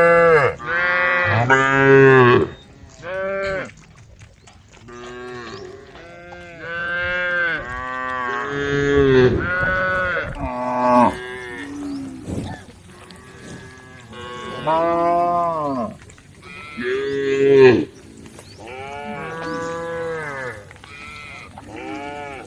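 Several cows mooing, about a dozen drawn-out calls in turn and sometimes overlapping, each arching up and down in pitch: cows calling to the herd.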